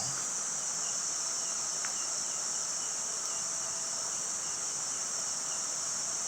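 Steady, high-pitched chorus of crickets and other night insects, with a fainter chirp repeating evenly underneath.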